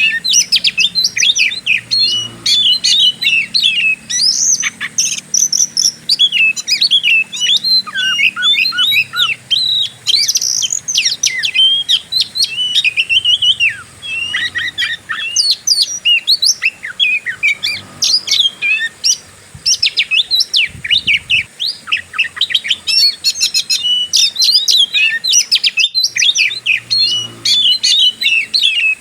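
Oriental magpie-robin (kacer) singing in fighting style: a fast, nearly unbroken stream of varied high chirps, whistles and trills, with a brief gap near the end.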